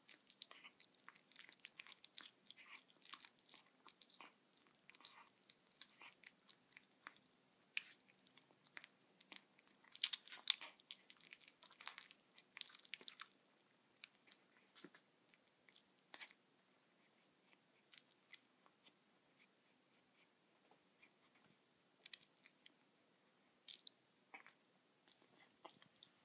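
A six-week-old Bengal kitten chewing a whole pinkie mouse: a run of sharp little bites and clicks of teeth. The chewing is busiest in the first half, then comes in sparser bursts with short pauses.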